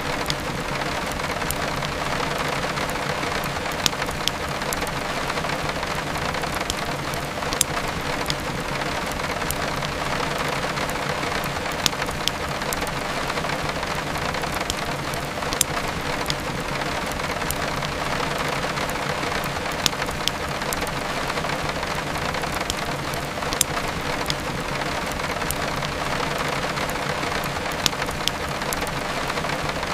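Steady heavy rain, with sharp pops and crackles of a burning wood fire every few seconds.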